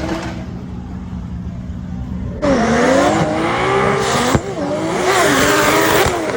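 Toyota 2JZ straight-six engine in a drifting BMW E46. It starts as a quieter, steady note, then about two and a half seconds in it turns suddenly much louder, revving up and down repeatedly as the car drifts, with a brief dip about four seconds in.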